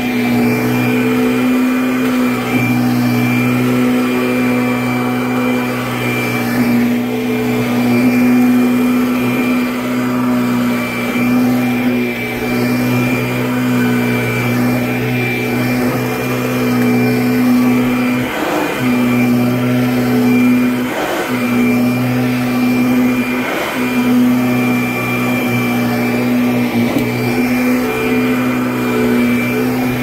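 Kirby Avalir upright vacuum running on carpet, its motor holding one steady pitch. The pitch dips briefly three times in the later part.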